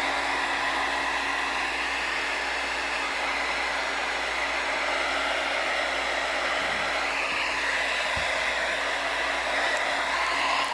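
Hand-held hair dryer running steadily: an even rush of air over a low motor hum. It is switched off at the very end.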